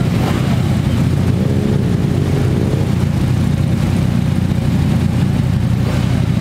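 Several motorcycle engines idling and running at low revs together, a steady, loud low rumble.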